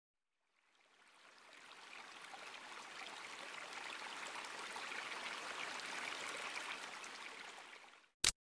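A steady rushing hiss with a fine crackle in it, fading in about a second in and fading away near the end, then a sharp click.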